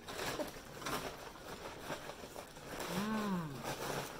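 A person chewing a mouthful of hamburger close to the microphone, with a short hummed 'mmm' that rises then falls in pitch about three seconds in.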